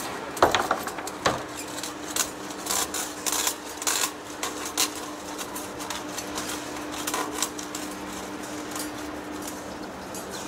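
Heavy-duty face lathe cutting a large steel rotor shaft: a steady hum from the machine, under irregular metallic clicks and clinks of curled steel chips breaking off the cutting tool. The clicks come thickest in the first seven seconds or so.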